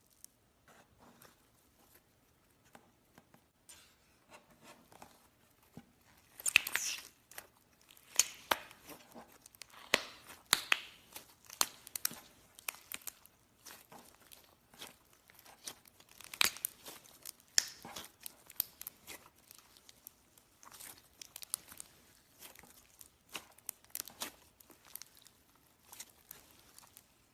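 Slime being squeezed and worked by hand, giving off irregular wet crackles and popping clicks, several a second, with louder clusters about a quarter of the way in and again a little past the middle.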